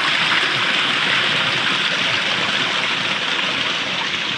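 Steady rushing of creek water pouring over the lip of a waterfall, heard from right at its top edge.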